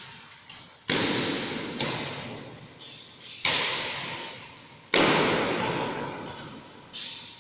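Badminton rackets striking a shuttlecock in a rally: about five sharp hits a second or two apart, each leaving a long echo in a large indoor hall.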